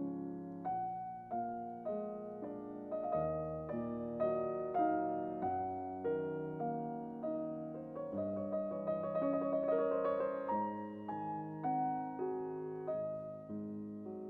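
Slow solo piano music, its notes struck and left to ring.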